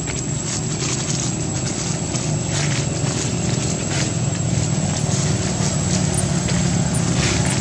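A motor engine running steadily, slowly growing louder, with a thin steady high-pitched whine over it and a few faint taps.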